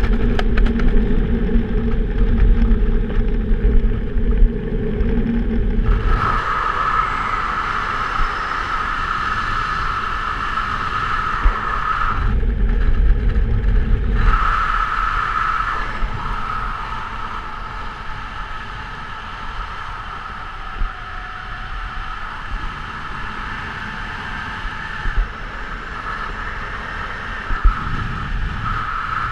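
Wind rushing over a helmet-mounted camera's microphone under an open parachute canopy, with the slider fabric flapping. Heavy low rumbling buffeting for the first six seconds and again briefly about halfway; otherwise a steadier, higher-pitched rush.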